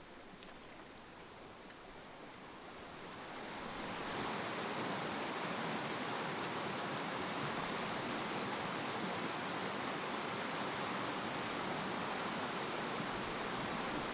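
River water rushing steadily, swelling in over the first few seconds and then holding even.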